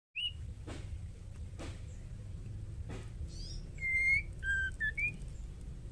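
White-rumped shama calling: a short whistled note at the start and a few soft clicks, then about four seconds in a run of clear whistled notes, each at a different pitch, the last one rising. A steady low rumble runs underneath.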